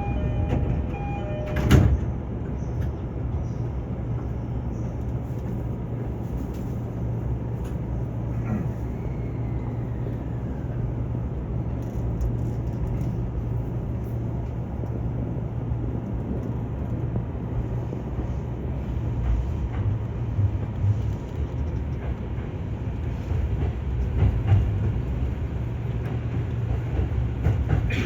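Train running with a steady low rumble, with a brief electronic tone right at the start and a single knock about two seconds in.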